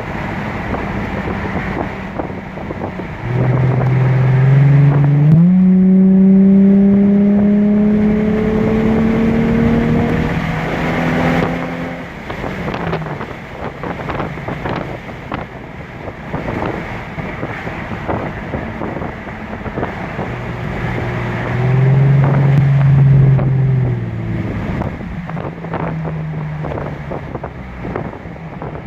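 Nissan 350Z's 3.5-litre V6 pulling under acceleration, its note climbing in pitch from about three seconds in, with steps in pitch along the way, then easing off. A second, shorter pull comes near the end. Wind buffets the microphone throughout.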